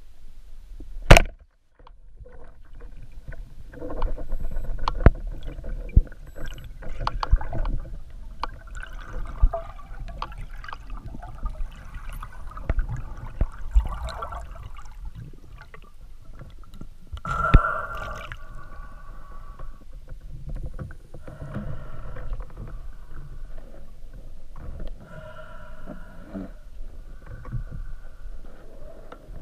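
A band-powered speargun firing underwater: one sharp, loud crack about a second in. It is followed by irregular knocks, scrapes and gurgling water noise as the gun, the line and the speared perch are handled.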